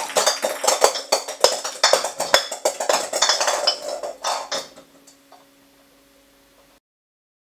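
Rapid tinkling, clinking bells that thin out and fade away about five seconds in. A faint hum is left, and then the sound cuts off near the end.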